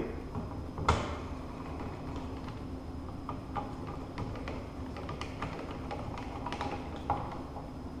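Hand screwdriver driving the screws into a four-gang wall switch plate: faint scattered clicks and scrapes, with one sharper click about a second in.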